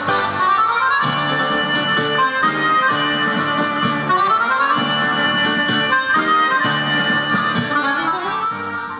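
Saxophone playing a melody over a backing track, with chords and a bass line underneath.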